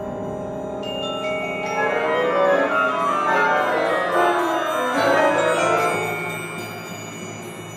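Orchestral music with a glittering, bell-like mallet-percussion texture over sustained tones. It swells in the middle, then thins out over a new low held note about five seconds in.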